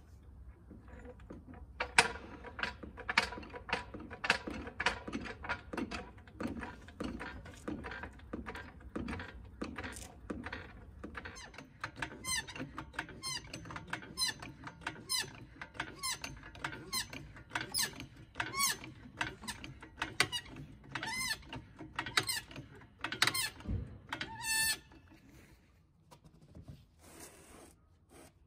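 Hydraulic floor jack being pumped by its long handle to lift a car: a regular run of clicks and knocks about two a second, with a squeak on each stroke from about halfway through. The pumping stops a few seconds before the end.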